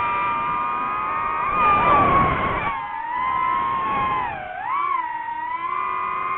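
DJI FPV quadcopter's motors and propellers whining, a steady multi-tone whine that rises and dips in pitch as the drone manoeuvres, with a louder, rushing surge about two seconds in.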